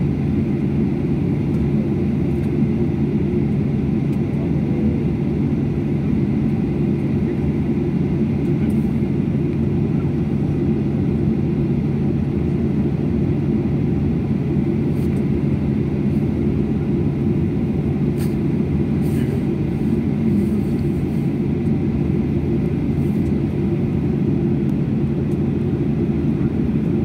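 Airliner cabin noise while taxiing: a steady low rumble from the jet engines at taxi power, with a constant low hum underneath.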